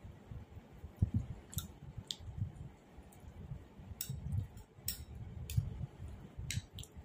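Close-up eating sounds: a person chewing soft, syrup-soaked sweets (rasgulla and gulab jamun), with soft irregular thumps and several sharp, wet mouth clicks.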